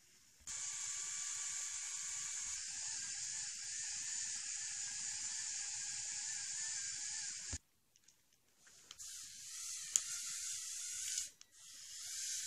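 Small electric motors and plastic gears of a remote-controlled LEGO Technic crane truck whirring with a high, hiss-like whine. It cuts off suddenly about seven and a half seconds in, then starts again a second or so later, with a click near ten seconds and another short break just after eleven.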